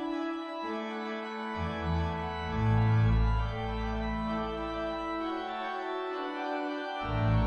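Organ music: sustained chords that change every second or two, with deep pedal notes coming in about a second and a half in and dropping out near the end.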